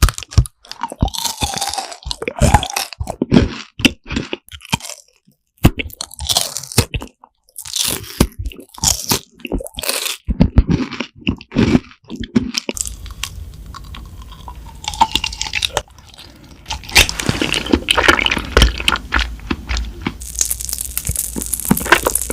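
Close-miked crunching and chewing of crisp food in a run of irregular, crackly bites and chews.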